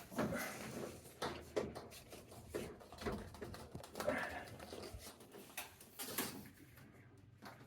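Irregular knocks, taps and scraping from hands working at a hole just drilled through a wall.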